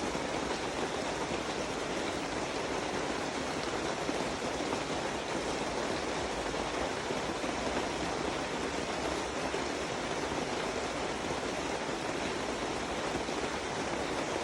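Steady rain falling on a cabin, an even, unbroken hiss.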